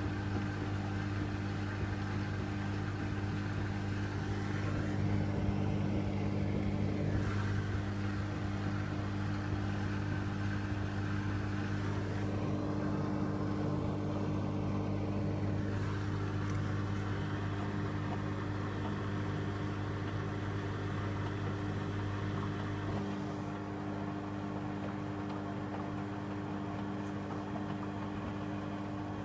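Beko washing machine running a cottons 60°C programme: a steady motor hum with faint clicks and swishes. The deepest part of the hum drops away about 23 seconds in.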